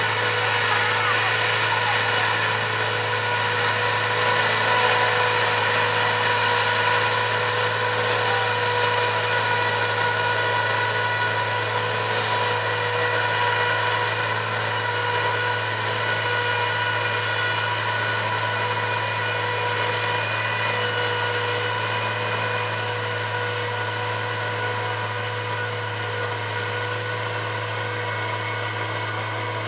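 Claas Jaguar 960 self-propelled forage harvester working under load, chopping triticale and blowing it into a trailer, with a tractor running alongside: a steady, unbroken machine drone with several held tones.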